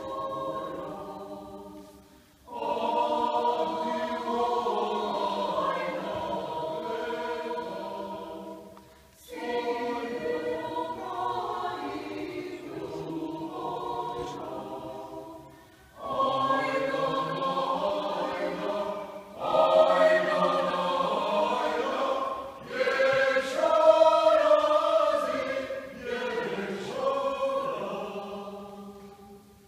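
Mixed choir of men and women singing unaccompanied, in phrases broken by short pauses. The later phrases are the loudest, and the singing fades out near the end.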